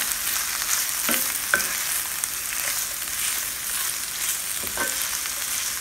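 Plant-based mock chicken and onions sizzling in oil in an enameled cast-iron braiser as they are stirred: a steady hiss, with three short clinks of the utensil against the pan, two about a second in and one near the end.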